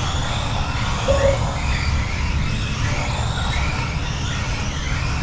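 Small electric motors of Kyosho Mini-Z RC trucks whining, their pitch swooping up and down as they accelerate and slow through the corners, over a steady low rumble. A short electronic beep sounds about a second in.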